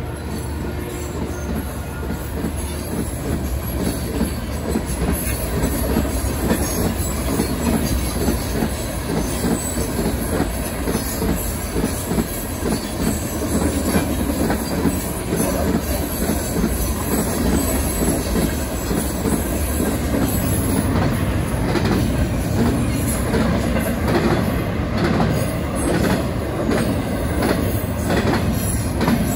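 Freight cars of a CSX train passing at speed over a road crossing: a steady rumble and clatter of steel wheels on the rails, with sharper clicks and knocks coming more often in the last third.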